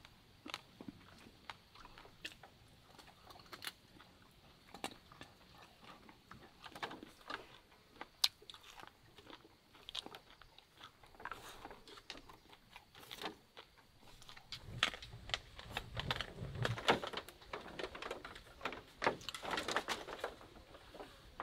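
Dog chewing and crunching meat and bone scraps from a woven bamboo tray: irregular crunches and clicks, denser and louder for several seconds in the second half.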